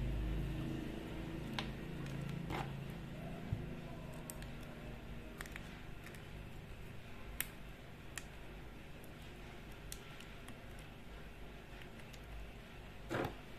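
Scattered small clicks and taps as the plastic case and wires of a W3230 digital thermostat module are handled and wires are pushed into its screw terminal block, with two louder rustles near the end. A low steady hum sits under the first few seconds.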